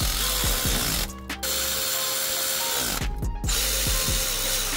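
Cordless electric ratchet running down header bolts in three bursts, with short pauses about a second in and about three seconds in. Its motor whine drops away each time the trigger is released.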